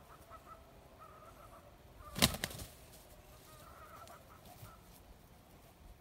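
A rooster flapping its wings in one brief burst of quick strokes about two seconds in, over faint calls from the chickens.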